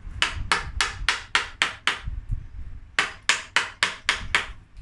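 Hammer and chisel carving into the wood of an elm trunk: a run of about seven quick blows, roughly three a second, a pause of about a second, then six more.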